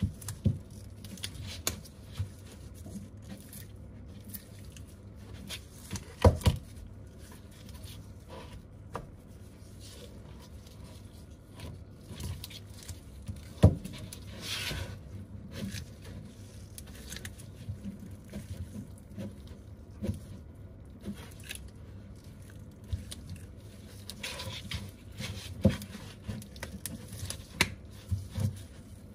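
Handling noise from an iPad Pro's aluminium body being turned and pressed in gloved hands on a workbench: soft rubbing and scraping, with a few sharp knocks of the tablet against the bench, a double knock about six seconds in and single ones around fourteen and twenty-six seconds.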